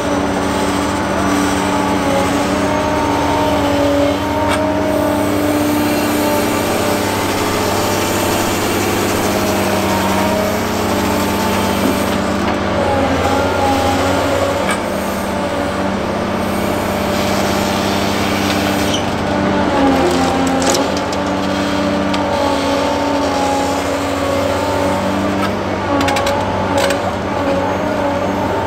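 Caterpillar 365C excavator's diesel engine running under working load, the pitch of its drone and the hydraulic whine shifting as the machine swings and lifts its hydraulic concrete cracker. A few sharp knocks come through, mostly in the last few seconds.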